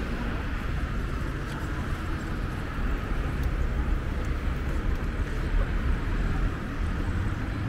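City street ambience: a steady rumble of traffic with general street noise.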